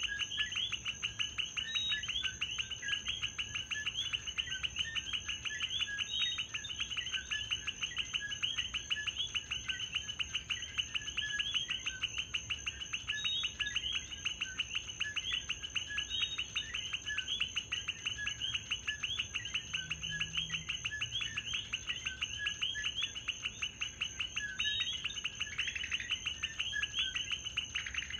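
Common coquí frogs calling their repeated two-note 'co-quí', over a dense chorus of rapid trilling and a steady high tone.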